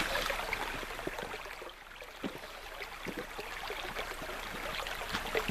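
Stream water running over stones, with a steady rush and many small irregular gurgles and splashes.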